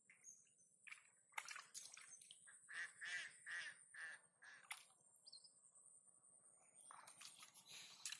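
Faint bird calls, about five in a quick even run in the middle, with the splash and squelch of hands working in shallow muddy water before and after.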